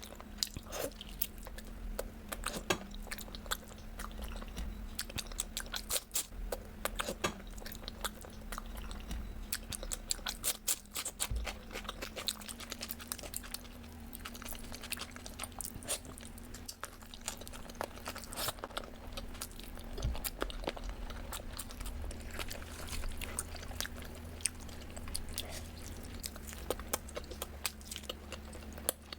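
A person biting and chewing crunchy food close to the microphone: a dense, irregular run of sharp crunches, with a faint steady hum underneath.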